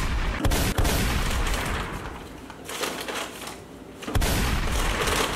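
Paper fast-food bag rustling and crinkling close to the microphone as a hand rummages inside it. There are two loud spells, the first fading out about halfway through and the second starting again near the end.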